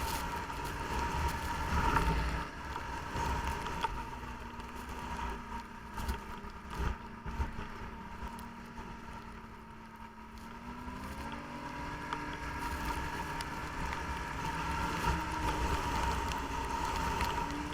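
Snowmobile engine running under way, with a steady high whine over it; about two-thirds of the way through the engine note climbs as the sled speeds up.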